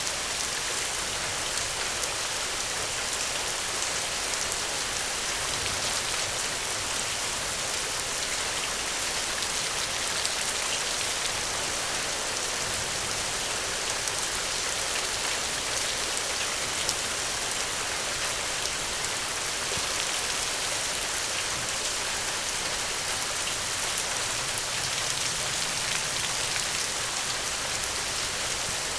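Steady rain falling: an even hiss with the fine patter of many individual drops.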